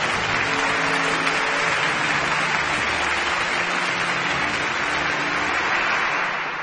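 Audience applauding steadily, with soft held music notes underneath; the applause fades near the end.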